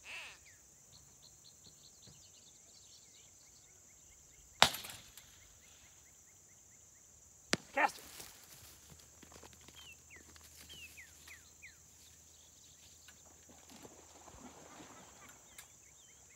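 A single sharp, loud bang about four and a half seconds in, with a short echoing tail, the signal for a mark thrown for a retriever. A smaller sharp click and a brief call follow about three seconds later, while insects buzz steadily and birds chirp throughout.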